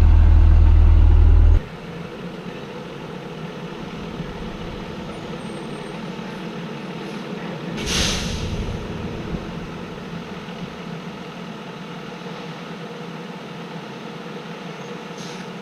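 A loud low hum stops abruptly about a second and a half in. After it, a school bus's engine idles steadily while the bus waits at a railroad crossing. About halfway through there is one short, sharp hiss of air, typical of the bus's air brakes releasing.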